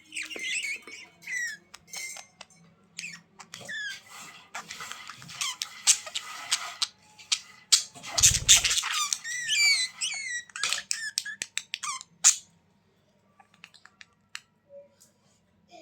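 Budgerigars chirping and warbling in quick high squeaky runs and pitch glides, busy for about twelve seconds and then thinning to scattered faint chirps and clicks. A brief low thud about eight seconds in.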